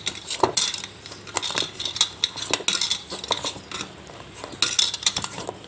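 Garlic cloves knocking and rattling inside a silicone garlic-peeler tube as it is rolled and rubbed hard against a plastic bowl, giving quick, irregular clicks and knocks.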